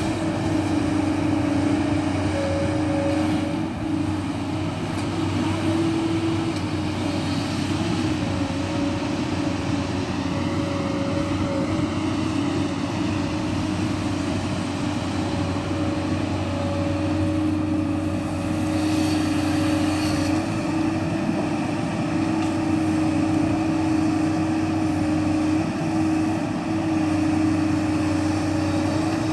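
JCB tracked excavator running steadily as it digs soil and swings to load a dump truck: an even engine drone with a constant tone over it, never rising or dropping away.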